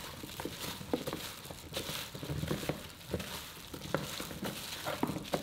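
Hands mixing cornstarch-coated Chinese eggplant pieces in a plastic bowl: steady rustling and squishing, with small irregular clicks as the pieces knock together and against the bowl.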